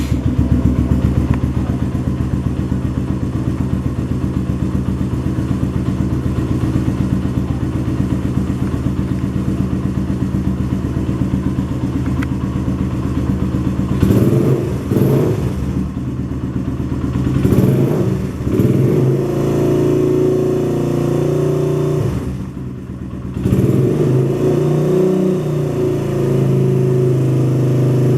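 Suzuki Yes 125's single-cylinder four-stroke engine running through a Roncar Aluminium SS aftermarket exhaust: a steady idle for about half the time, then several short throttle blips, then held at higher revs twice near the end.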